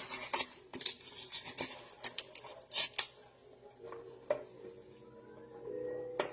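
Metal knife clinking and scraping against a mailed package as it is worked open: a dense run of sharp clicks and scrapes, then a few separate clicks.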